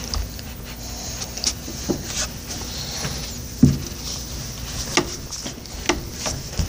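Handling and movement noise close to the microphone: scattered soft knocks and rustles, with one louder thump about three and a half seconds in.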